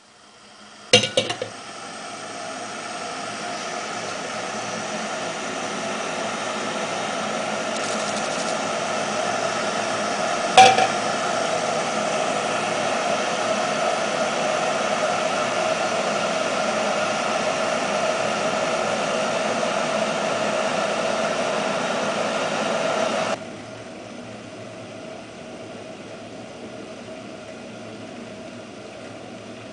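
Arzum Çaycı electric Turkish tea maker heating water: a metal clink as the stainless steel teapot is set on the kettle about a second in, then a steady hiss that builds for many seconds, with another sharp clink about ten seconds in. The hiss drops suddenly to a quieter level near the end.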